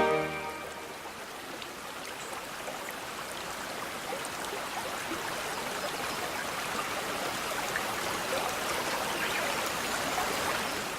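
A small brook babbling: a steady wash of running water that swells slightly toward the end. At the very start an orchestra's final chord dies away under it.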